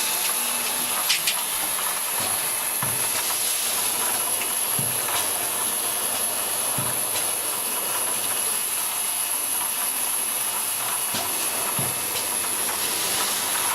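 Vial tray washing machine running: a steady hiss of spraying jets, with a thin high steady tone above it and a soft low knock every second or two.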